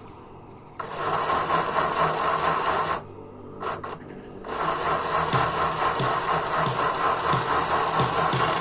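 A small electric motor runs steadily with a high whine. It starts suddenly, stops for about a second and a half, then runs again.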